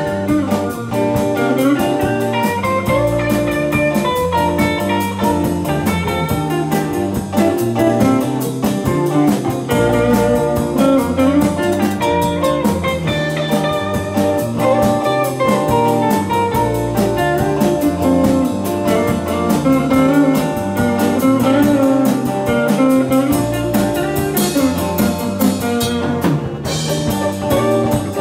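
Live rock band playing a song: acoustic and electric guitars, electric bass and drum kit, over a steady, fast drum beat.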